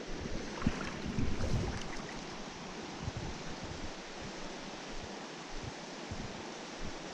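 Steady rush of a small mountain stream's flowing water, with a few low buffets of wind on the microphone in the first couple of seconds.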